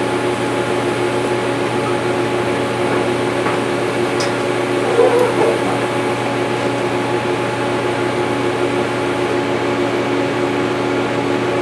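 Arc welder in use on thin sheet metal: a steady electric hum with hiss, and a short crackle about five seconds in.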